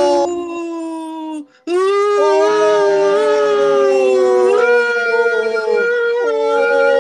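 A man and a woman keening together: long, loud wailing 'ooh' notes that are held, then slide and step in pitch, with a brief break about a second and a half in. It is a mock-mournful wail, 'like crying, but more dramatic'.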